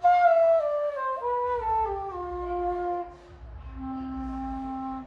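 Bass bansuri (bamboo transverse flute) played in a descending phrase of stepped notes. After a brief pause it settles into one long, steady low note held for the last second and a half.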